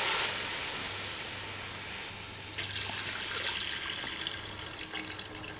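Coconut milk poured in a stream into a metal pot of ghee-fried onions and spices, a steady splashing pour; a fresh pour starts about two and a half seconds in.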